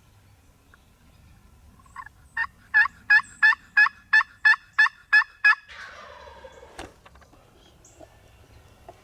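Turkey yelping: a loud run of about ten evenly spaced yelps, roughly three a second, followed by a fainter, falling rattle and a single sharp click.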